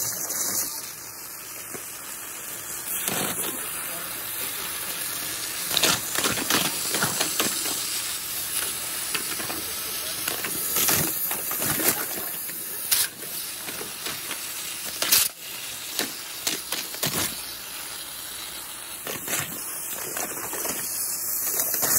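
High-pressure waterjet cutter running, a loud steady hiss broken by sharp cracks and pops as the jet cuts through a row of candy bars on a board.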